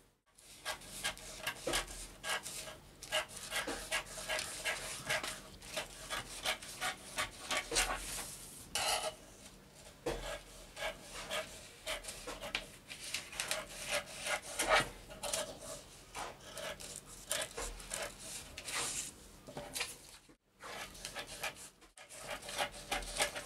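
Scissors cutting through pattern paper and newspaper, a quick run of rasping snips with paper rustling. The sound drops out twice briefly near the end.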